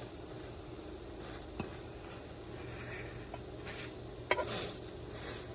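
Food frying in a pan over a steady fan hum, with a utensil clicking against the pan about one and a half seconds in and clinking louder about four seconds in.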